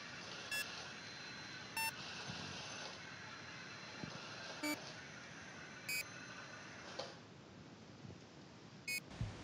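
Five short electronic beeps at uneven intervals, over the faint steady hum of a small wheeled robot's drive motors. The hum stops about seven seconds in, as the robot reaches its goal.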